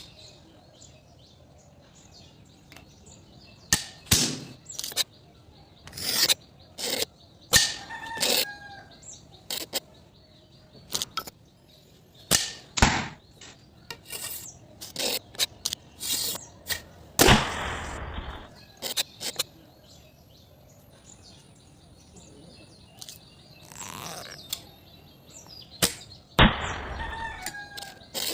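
Irregular sharp knocks and clacks, a few a second in clusters with quiet gaps, some ringing briefly, over faint bird chirps.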